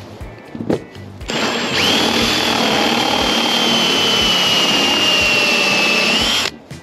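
Ryobi cordless drill with a step drill bit boring a hole through a caravan roof. The motor starts about a second in and runs steadily for about five seconds, its whine sagging slightly under load and rising just before it stops suddenly.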